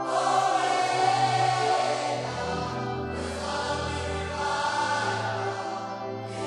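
Gospel praise-and-worship music: a choir singing long held notes over the band, the bass moving to a new chord about two seconds in.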